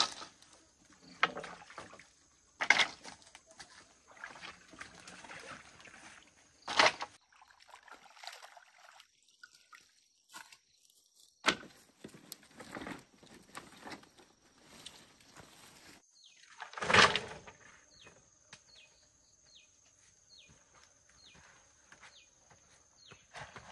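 Footsteps and rustling of a person moving through mud and brush at a pond's edge, with several sharp knocks or splashes, the loudest about seventeen seconds in. Faint short high chirps repeat near the end.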